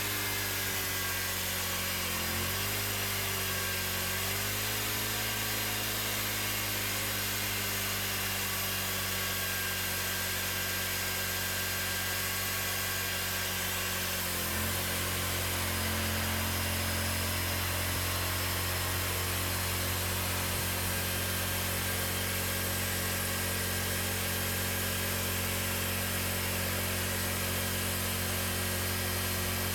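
Cooks 3238 hydraulic band sawmill running and sawing through a cherry log, a steady machine note. Its pitch dips briefly about two seconds in, then drops again near the middle and settles lower and slightly louder.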